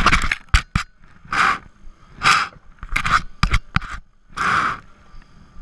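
Ski boots scraping on a gritty wooden deck: about four short scrapes roughly a second apart, with a few sharp clicks between them.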